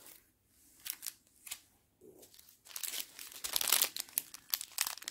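Clear plastic packets of diamond painting crystals crinkling as they are handled: a few short rustles in the first two seconds, then a longer stretch of crinkling from about two and a half seconds in.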